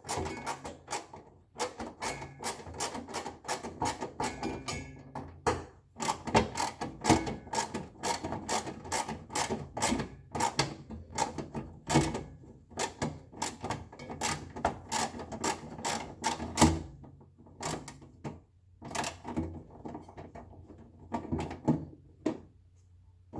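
Screws being driven in one after another with a screwdriver, a quick irregular run of clicks and scrapes with short pauses between screws.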